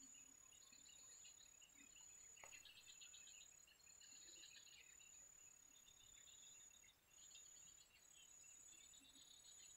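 Near silence: faint insects and birds chirping, over a steady high-pitched insect trill that breaks off briefly every second or two.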